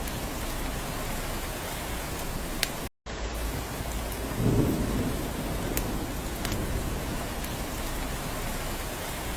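Steady rain falling on a cabin, an even hiss with scattered sharp drop ticks, and a short low rumble about halfway through. The sound cuts out completely for a split second about three seconds in.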